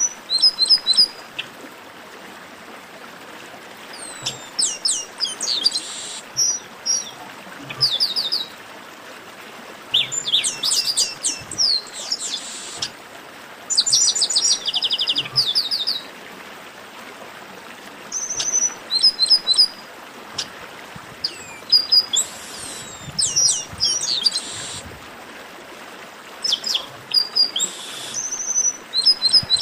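Chestnut-capped blackbird (garibaldi) song: repeated bursts of rapid, sharp notes and short whistles, a phrase every second or two with brief pauses between, over a steady hiss.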